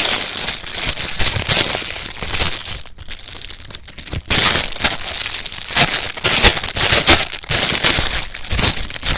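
Clear plastic packaging bag crinkling and rustling in hand as a squishy foam toy is unwrapped from it, in loud bursts with a short lull about three seconds in.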